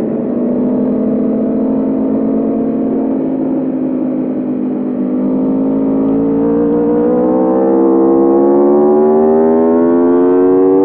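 Aprilia RSV4 Factory's V4 engine on the move: revs held nearly steady for the first half, then climbing smoothly and steadily from about halfway through as the bike accelerates in gear.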